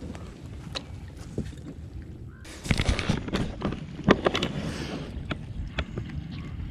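Water splashing and sloshing against a plastic kayak hull as a largemouth bass is held by the lip in the water for release. A run of sharp knocks and splashes comes from about two and a half to five seconds in, over a low steady rumble of wind and water.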